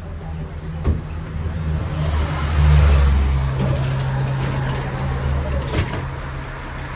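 New Orleans streetcar running, heard from aboard: a steady low electric motor hum that grows loudest about two to three seconds in, with a couple of sharp knocks, one about a second in and another near the end.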